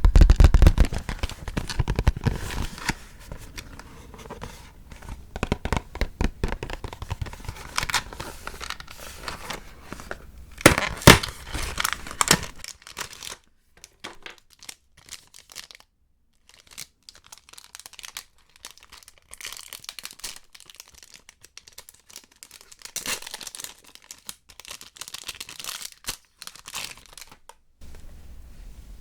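Chocolate wrapper packaging crinkling and being torn open, a dense crackle with louder tearing bursts about a third of the way in. It falls quieter for a few seconds before softer crinkling resumes.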